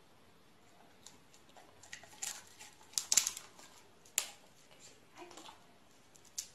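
Scattered sharp clicks and scuffs from two golden retrievers moving about on a hard floor while tugging at a plush toy, the loudest about three seconds in and again a second later, over quiet room tone.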